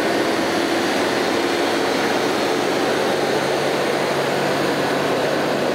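A loud, steady mechanical drone with a low hum running under it.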